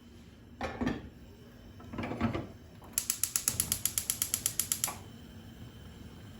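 Two short handling sounds, then a fast run of sharp mechanical clicks, about nine a second, ratchet-like, lasting about two seconds.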